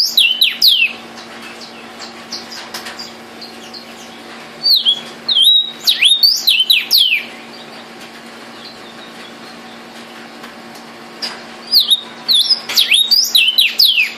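Male vermilion cardinal singing: three bouts of loud, clear down-slurred whistles, one at the start, one about five seconds in and one from about eleven seconds on, over a faint steady hum.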